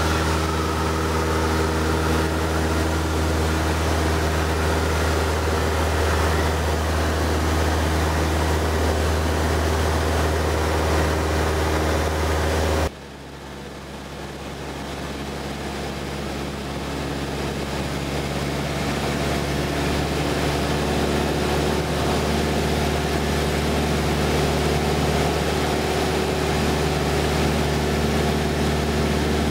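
Cessna 172 floatplane's engine and propeller droning steadily, heard inside the cabin in flight. About halfway through the sound drops suddenly, then swells back up over several seconds.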